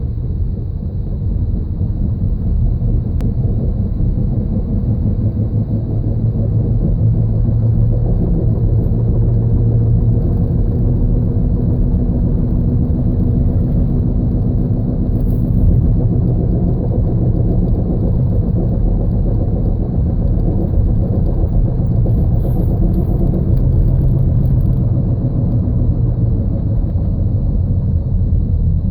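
1999 Toyota Sienna XLE on the move with a steady low grinding rumble that builds over the first several seconds and then holds. The grinding gets louder the faster the van goes; with the driver-side wheel bearing and axle already replaced, the owner takes it to be coming from the transmission.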